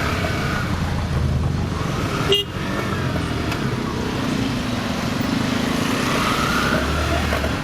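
Kawasaki motorcycle engine running steadily on the move, with wind rushing over the camera microphone. A short sharp sound, possibly a brief horn toot, comes a little over two seconds in.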